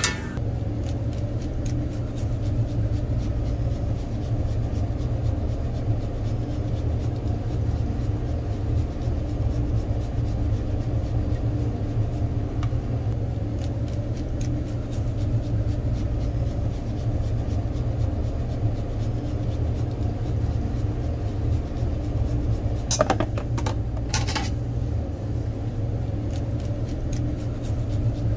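A steady low mechanical hum, with two brief sharp clatters near the end.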